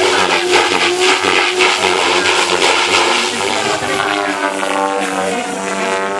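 Electric Devil 420 RC helicopter flying aerobatics: a steady motor-and-rotor whine over the rush of its spinning blades. The pitch dips and rises again near the end as it manoeuvres.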